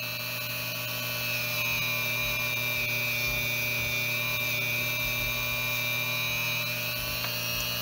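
Dremel rotary tool running steadily with a Scotch-Brite-style abrasive wheel, a constant high motor whine, as the copper reversing drum of a toy train's reverse unit is held to it to polish the dirt off its contacts.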